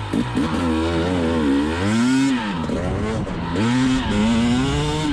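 2020 KTM 300 XC TPI two-stroke single running and being revved up and down several times, its pitch climbing and dropping, with its exhaust power valve freshly adjusted.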